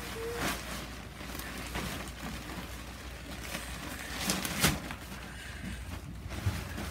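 Rustling and handling of a pop-up play tent's fabric and frame, with light knocks and a few sharper clicks about four and a half seconds in.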